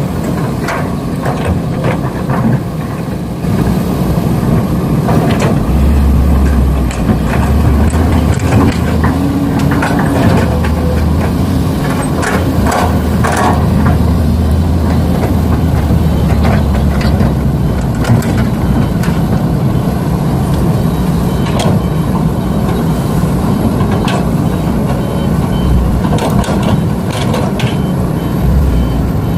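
Radio-controlled model excavator and dump trucks at work: a steady truck-like engine drone, heavier from about six to about seventeen seconds in, with scattered clicks and knocks throughout.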